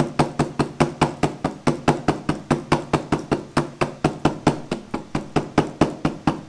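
Rubber mallet tapping rapidly and steadily on the seized locking gas cap of a 2005 Honda VTX1800F's fuel tank, about four or five light blows a second. The blows are meant to knock the cap's stuck locking wings loose.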